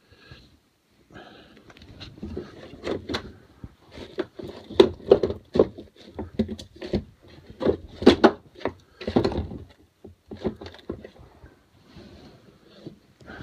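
Handling noise: irregular knocks, bumps and rubbing against a covered phone microphone, busiest in the middle.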